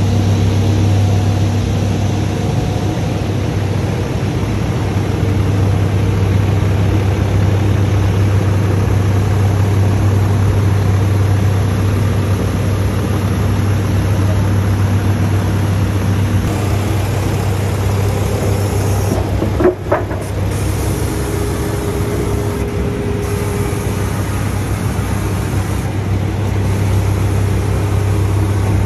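Diesel truck engine idling steadily with a deep, even hum. About two-thirds of the way through there is one short, sharp sound.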